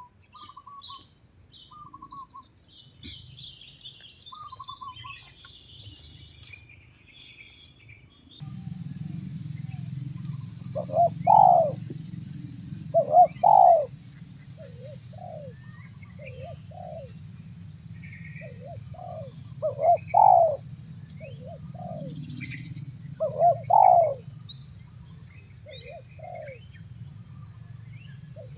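Spotted doves (tekukur) cooing, a run of short repeated coo phrases that begins about a third of the way in, while small birds chirp faintly. A steady low hum sets in about eight seconds in.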